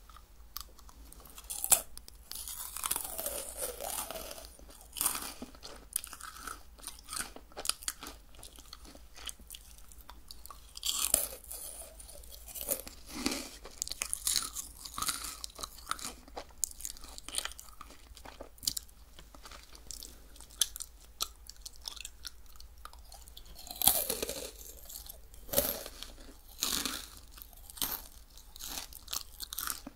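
Crisp crunching bites and chewing of a meringue cookie, close to the microphone, with the loudest crunches about two seconds in and again later on.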